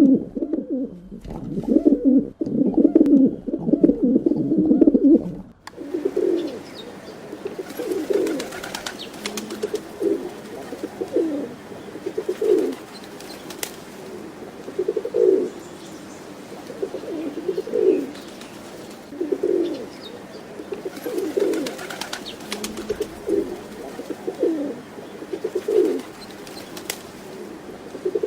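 Pigeon cooing: a dense run of overlapping low coos that breaks off suddenly about six seconds in, followed by single coos repeated every second or two, with a few faint sharp clicks between them.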